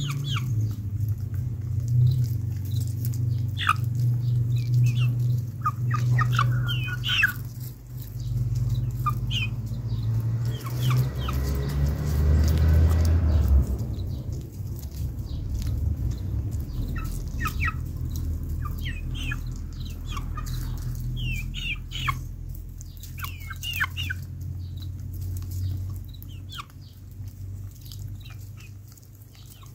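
Domestic hens feeding, with short clucks, chirps and pecking clicks scattered throughout, over a steady low hum; a louder broad whoosh swells about ten to fourteen seconds in.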